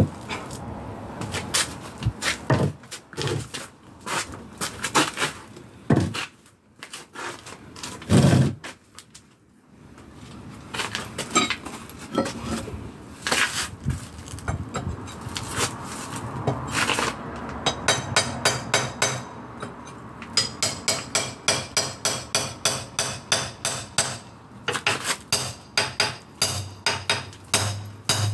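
Hand hammer striking repeatedly, in irregular blows at first, then a steady run of about two to three strikes a second with a metallic ring over the second half.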